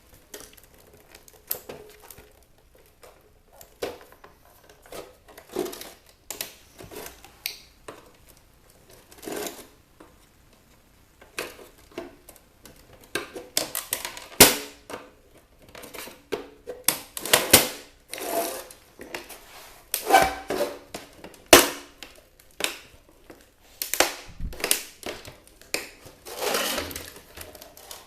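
Irregular clicks, knocks and rattles of a roof-mounted car DVD player's casing and parts being handled and taken apart, with a few sharper knocks along the way.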